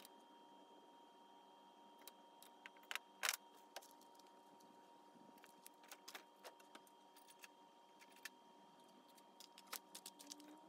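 Scattered small metallic clicks and clinks as a scooter carburetor and a wire brush are handled and set down in a metal wire-mesh parts basket. The loudest clinks come about three seconds in, and another run comes near the end; between them is near silence.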